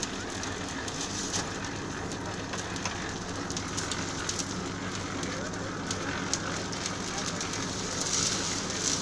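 Concrete slab pour in progress: a machine engine running steadily under continuous crackling, gravelly noise of concrete work, with scattered sharp clicks and knocks.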